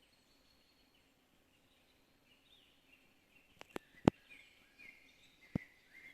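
Songbirds singing in a forest, short warbling phrases, with four sharp clicks between about three and a half and five and a half seconds in, the loudest just after four seconds.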